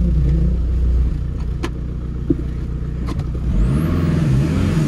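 VW Jetta diesel engine running as the car is driven, heard from inside the cabin: a steady low drone that eases off about a second in, a few sharp clicks and clunks in the middle, and the engine note rising and falling again near the end.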